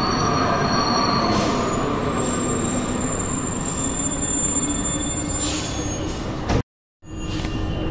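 NS-93 rubber-tyred metro train pulling into the station: a steady rolling rumble with thin, high-pitched squealing tones and two brief hisses. About six and a half seconds in, the sound cuts out abruptly for a moment, then resumes.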